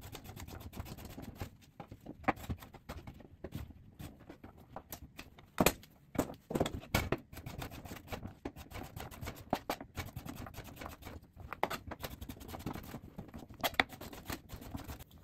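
Chef's knife slicing cucumbers into rounds on a plastic cutting board: a steady run of quick taps as the blade cuts through and meets the board, with a few louder knocks among them.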